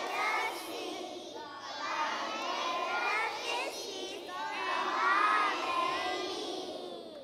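A group of young children singing loudly together, many voices with held notes.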